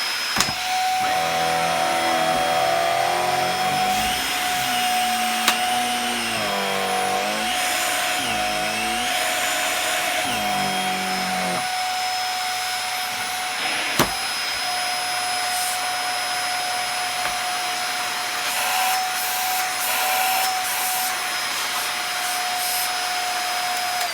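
Dyson DC50 upright vacuum cleaner running steadily with its motor and brush roll spinning, giving a steady high whine, then switched off at the very end and winding down in pitch. For the first ten seconds or so a second sound wavers up and down in pitch over it, and there are a few sharp knocks.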